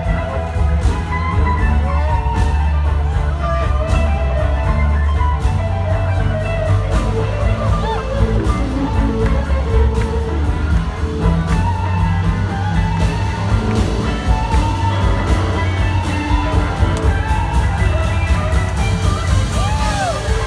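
Live blues-rock band playing an instrumental passage: electric guitars taking lead lines with gliding, bent notes over drums and a heavy bass line.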